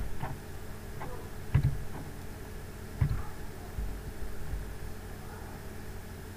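Steady low electrical hum and hiss from the recording setup. Two soft knocks come through it, one about a second and a half in and another about three seconds in.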